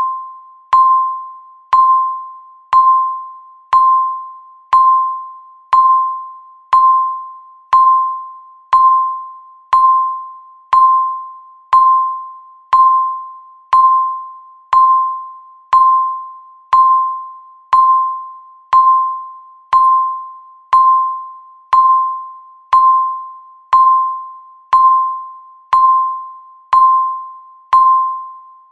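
Countdown timer's electronic beep, one short pitched ping each second, each starting sharply and fading quickly before the next.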